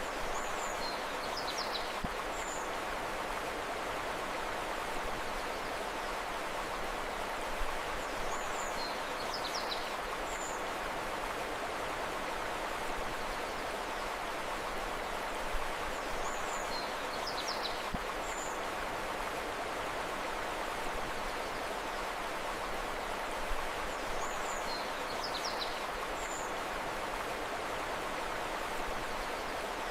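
Steady rush of flowing river water, with a bird's short, high chirps coming in four times, about every eight seconds.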